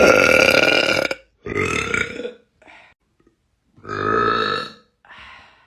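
A person burping repeatedly, about five burps: a long loud one at the start, another a moment later, a short faint one, another loud one past the middle, and a shorter, quieter one near the end.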